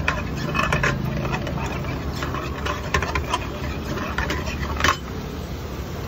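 Steel ladle stirring and scraping in a frying pan of hot oil with ginger-garlic paste and cumin, giving repeated clinks and one sharper knock about five seconds in, over a steady low hum.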